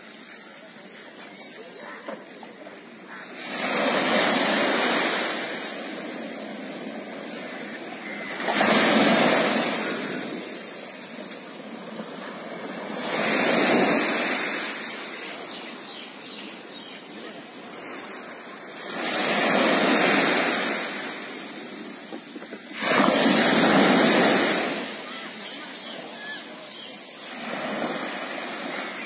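Small waves breaking and washing up a sandy beach: the surf swells and fades five times, about every four to five seconds, over a steady hiss of sea.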